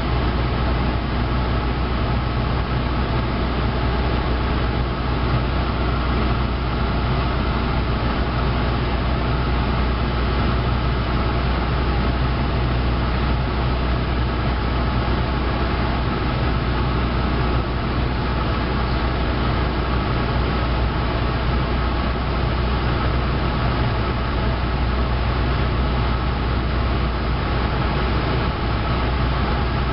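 Cessna 172's piston engine and propeller running steadily in flight, heard from inside the cabin as an even drone with a strong low hum.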